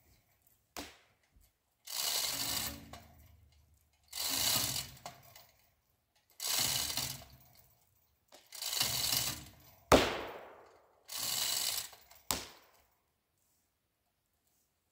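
Two-ton chain fall being hand-pulled: five long pulls on the hand chain about every two seconds, each a rattle of chain links with the ratchet clicking, tightening the line on the leaning maple. Just before the middle of the fourth pull comes one sharp crack, the loudest sound.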